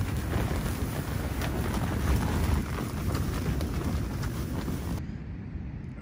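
Strong wind battering a dome tent, heard from inside: a steady roar with the tent fabric flapping and rustling. About five seconds in it cuts off suddenly to a quieter, low wind rumble.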